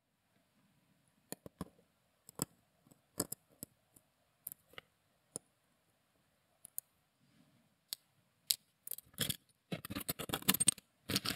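Light, scattered clicks of steel tweezers picking and scraping brittle old lume out of small steel watch hands. Near the end the clicks come thicker, as a short run of small metallic clattering.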